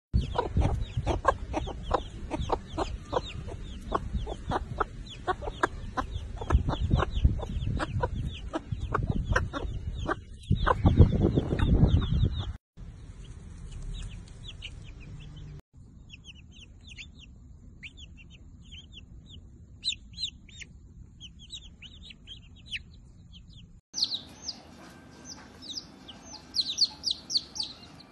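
Silkie hens clucking in low, quickly repeated notes while their chicks peep in short high calls. From about twelve seconds in only chicks are heard, with scattered thin peeps at first and then many chicks peeping together near the end.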